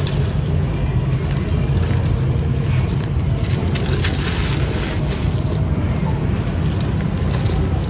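Gritty, dry concrete-clay pot pieces being crushed and crumbled by hand close to the microphone: a continuous crunching and grinding, with many small crackles.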